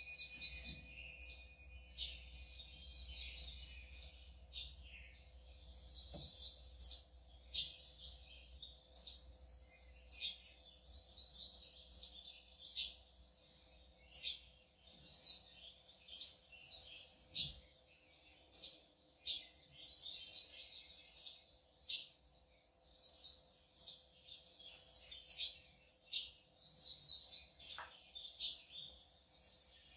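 Many small birds chirping and twittering in quick, overlapping trills of high notes.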